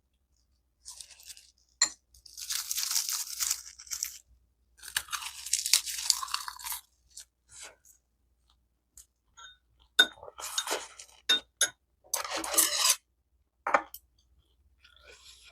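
Close-miked eating: crunchy chewing in several bursts of a second or more, with a few sharp clicks between them.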